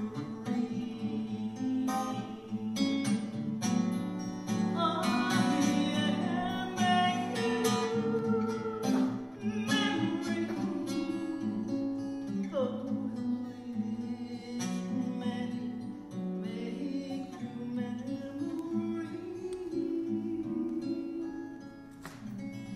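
A woman singing while playing an acoustic guitar, a folk song with steady strumming.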